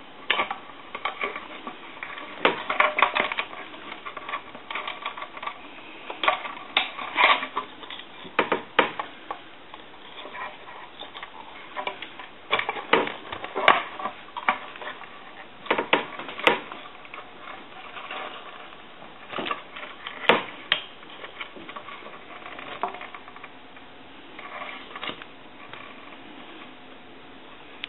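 Irregular clicks, taps and light clatter of a Conairphone Metropolis telephone's parts being handled and fitted back together during reassembly, coming in small clusters and thinning out near the end.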